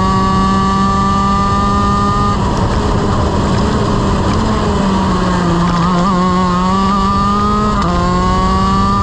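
Shifter kart's Honda CR125 two-stroke engine heard onboard, running hard: its pitch climbs steadily, turns rough and unsteady for a few seconds from just after two seconds in, then climbs again and drops suddenly near the end as it shifts up a gear.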